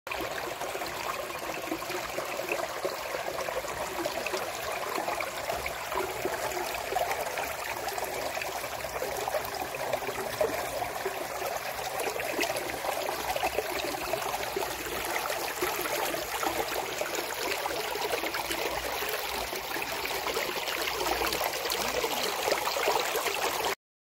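Mountain stream rushing steadily over rocks, cutting off suddenly just before the end.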